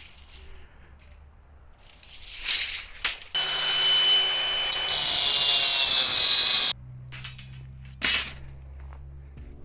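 4.5-inch angle grinder with a diamond-rim wheel cutting: a few short bursts, then about three seconds of loud, continuous high-pitched grinding whose pitch sags slightly under load partway through. After it stops, a lower steady hum runs on, broken by one more short burst.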